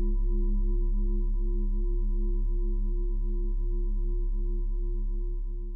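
Sustained ringing tone over a deep low hum, the tone wobbling in a steady pulse, fading out near the end: the closing logo's sound sting.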